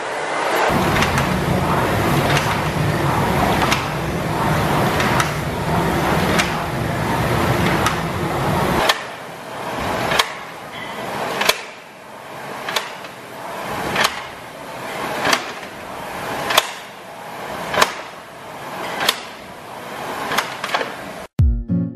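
Concept2 rowing machine's air flywheel whirring under hard, fast rowing. From about nine seconds in, the strokes come about one every 1.3 seconds, each a sharp click followed by a whoosh that swells and fades.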